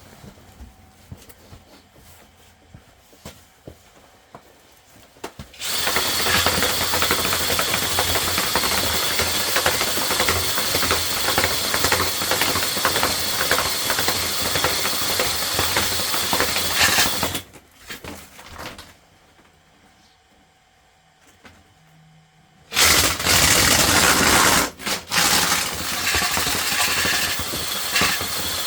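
Flexi-shaft drain-cleaning machine spinning its cable inside a sewer pipe to cut out tree roots. It starts about five seconds in and runs loud for around twelve seconds, stops for about five seconds, then starts again with a couple of brief cut-outs.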